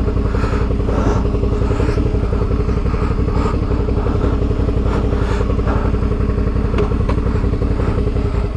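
Adventure motorcycle engine idling steadily at an even pitch, with a few light knocks and clatters over it.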